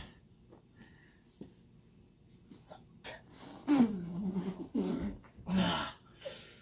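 Wordless vocal sounds and breathy exhalations from people wrestling on the floor. There are faint rustles at first, then a loud drawn-out groan about three and a half seconds in and another breathy burst near the end.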